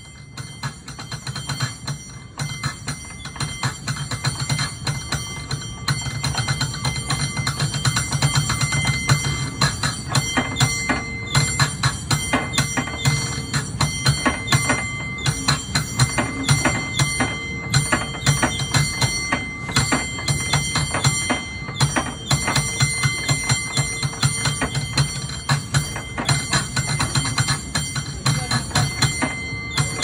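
San Francisco cable car bell rung rapidly by hand with its pull cord: a fast, rhythmic run of many clangs a second. It builds in loudness over the first several seconds, then keeps up at full volume.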